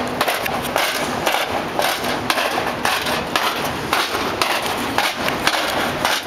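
Irregular clattering knocks and footfalls, several a second, from a person walking on pavement in a stiff robot costume, over a steady hiss of street noise.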